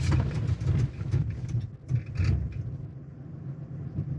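Low rumble inside the cab of a 2022 Chevrolet Silverado ZR2 with its 6.2-litre V8, creeping down a gravel slope in four-wheel-drive low with hill descent control holding the speed. Scattered short crackles over the steady rumble.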